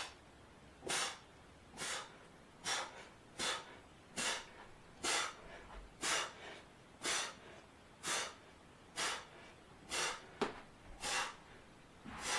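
A man breathing out sharply through pursed lips, one short puff with each repetition of a light overhead press, about one breath a second.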